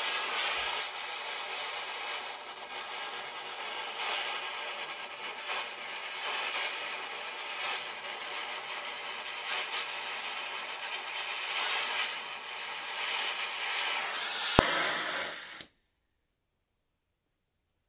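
Oxy-acetylene gas welding torch hissing steadily while welding a steel pipe fitting, played at double speed. A sharp click comes near the end, and then the sound cuts off abruptly into dead silence.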